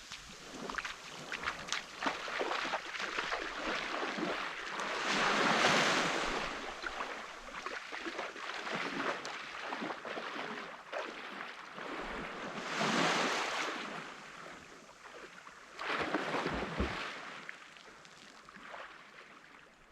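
Waves breaking and washing up a beach, the surf rising and falling in several swells, the loudest about a third of the way in.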